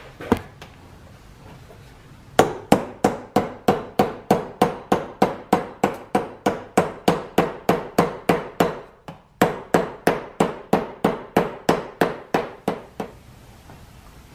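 Hammer tapping on the end of a canvas drive belt held on a bench vise: a quick, even run of blows, about three a second, a short pause a little past the middle, then a second run.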